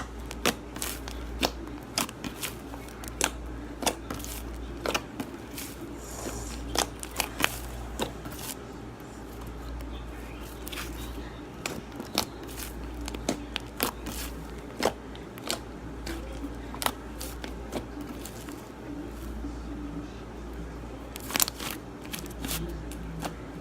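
Slime mixed with Model Magic clay being kneaded and stretched by hand, giving irregular sharp clicks and pops over a steady low hum.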